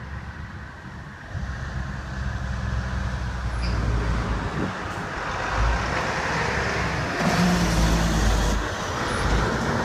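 Road traffic: vehicles passing, a low engine rumble with a rising hiss of tyre noise that is loudest near the end.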